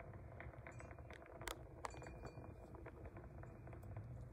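Faint background sound: a few scattered light clinks or ticks over a low steady rumble.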